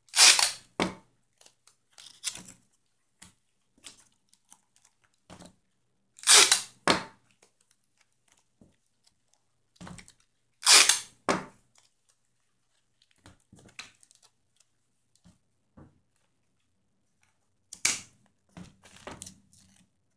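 Cardboard craft parts being handled and worked: short, loud rasping noises, mostly in pairs about half a second apart, repeating several times with quiet gaps between.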